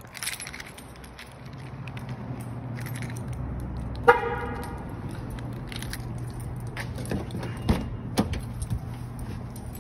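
Footsteps over a steady low hum, then a single short car-horn chirp about four seconds in, the loudest sound. Near the end come two sharp clicks as a car door is opened.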